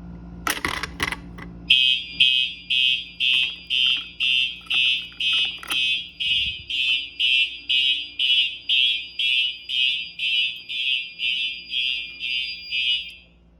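A Fire-Lite BG-8 manual pull station is pulled with a few sharp clicks. Then the fire alarm system's horn sounds: a high-pitched electronic tone pulsing about twice a second, which cuts off shortly before the end.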